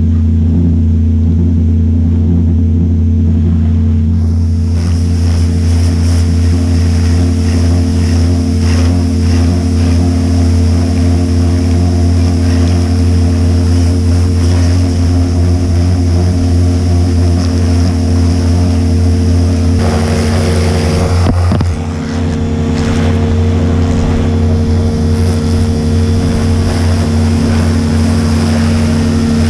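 Pressure washer's motor and pump running steadily, the water jet hissing against a dirt bike's wheel and engine. The drone dips briefly about twenty-two seconds in.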